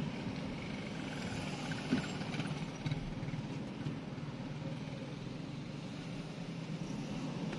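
Steady low hum of a car's engine and tyres, heard from inside the cabin while driving slowly. Two brief knocks about a second apart.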